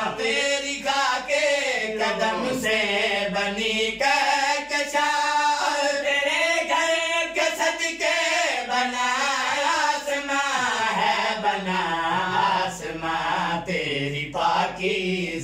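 A man's voice singing an Urdu devotional manqabat unaccompanied, drawing out a long ornamented passage between lines of the lyric, the pitch wavering and sliding without a break.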